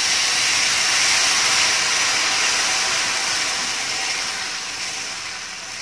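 Boiling water hitting rice toasted in hot oil in a saucepan: a loud hiss and sizzle as the water flashes to steam, slowly dying down as it settles into bubbling.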